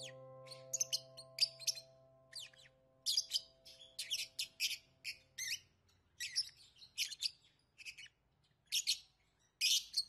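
Parakeets chirping: many short, high chirps in small groups throughout. Under them, a held music chord fades out about halfway through.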